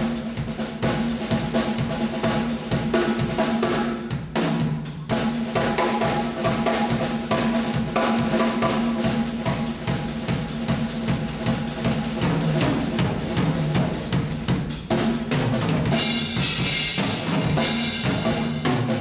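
Drum kit solo: fast, dense strikes and rolls across snare, toms and bass drum, with a brief break about four and a half seconds in and cymbals crashing near the end.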